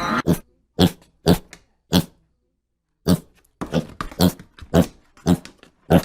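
A dog barking: a run of short, sharp barks, four in the first two seconds, then a pause of about a second before a quicker string of barks.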